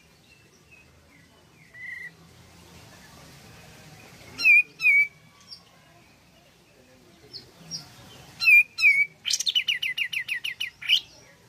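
Olive-winged bulbul (kapas tembak) singing: two pairs of sharp whistled notes, then a fast chattering run of about a dozen notes near the end.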